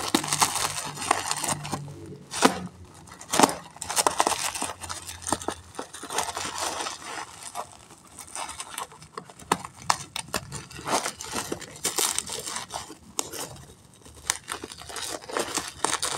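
Sealed packaging of a new laptop RAM module being torn open and unwrapped: irregular crinkling and tearing, with sharp clicks and snaps.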